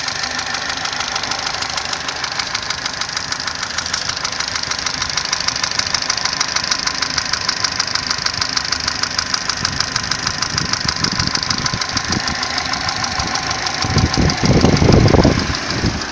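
Opel Astra H 1.4 engine running with a rapid, even, diesel-like knocking clatter, the knock the owner is recording. About fourteen seconds in, a louder low rumble rises for a second or two.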